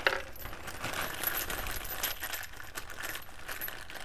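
Fired brass rifle cartridge cases clinking against each other as they are handled in a plastic bag: a steady patter of small metallic clicks.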